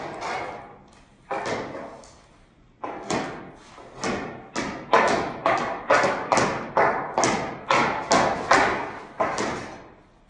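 Hockey stick blade striking a small ball and slapping the concrete floor during stickhandling. The hits come sparse at first, then settle into a quickening, even beat of about two to three a second, each hit ringing briefly in the garage.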